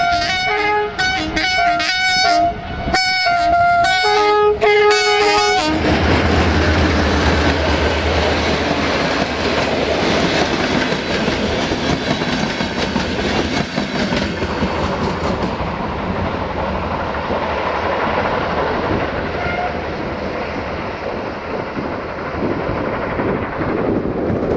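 A GM-engined CFR class 65 diesel locomotive sounds its multi-tone horn in a quick run of short notes of changing pitch for about six seconds. Its engine then drones low as it passes, followed by the steady rumble of the coaches rolling over the rails.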